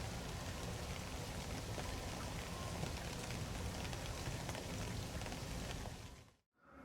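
Heavy rain falling steadily, with scattered drops striking surfaces. It drops out to silence for a moment near the end, then resumes.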